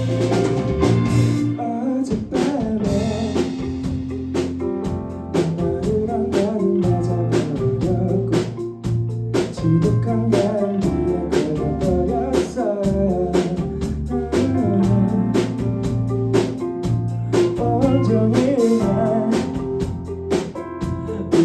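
Live rock band playing: electric guitars over bass guitar and a drum kit keeping a steady beat.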